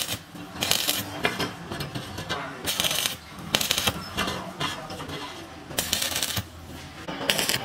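Stick (arc) welding: the electrode's arc crackling and sizzling in about five short bursts, each under a second, with quieter gaps between, as the arc is struck and broken off again for tack welds on a steel pipe.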